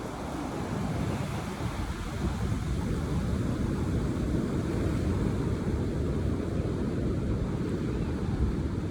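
Steady rushing noise of ocean surf and wind, growing a little louder about a second in.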